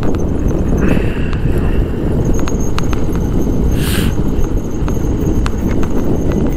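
Motorcycle ride noise: a steady, loud low rumble of wind buffeting the microphone together with engine and road noise, with a brief hiss about four seconds in.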